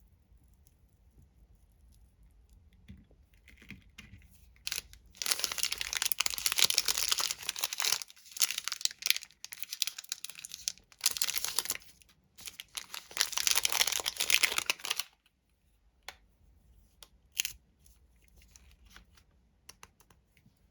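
Candy wrapper being torn open and crinkled by hand. Faint handling at first, then several loud stretches of crackling crinkle from about five to fifteen seconds in, followed by a few scattered light crinkles and clicks.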